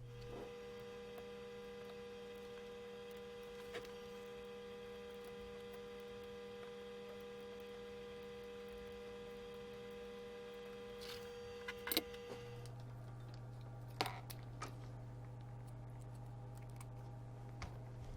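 Faint steady electrical hum made of several fixed tones. Its pitch pattern changes about twelve seconds in. A few light clicks fall over it, around four, twelve and fourteen seconds in.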